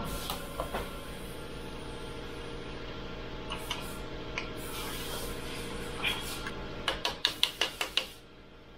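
Hand tools clicking and tapping against metal parts on the bare engine block during piston and connecting-rod installation, ending in a quick run of about eight sharp clicks, over a steady hum that drops away near the end.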